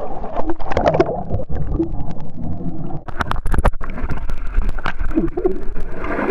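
Muffled underwater sound in a swimming pool, picked up by a camera held under the surface: bubbles gurgling, with many sharp clicks and a low rumble.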